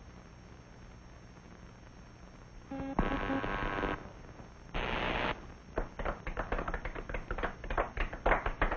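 Cartoon sound effects over faint film-soundtrack hiss: about three seconds in a loud buzzing tone sounds for about a second, then a short burst of hiss, then a fast, irregular run of clicks and taps.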